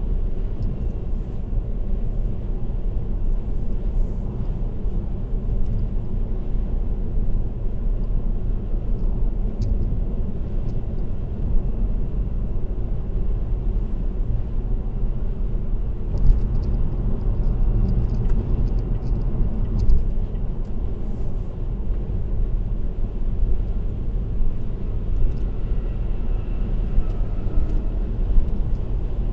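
Steady low road rumble of a car cruising on an expressway, with tyre and engine noise heard from inside the car.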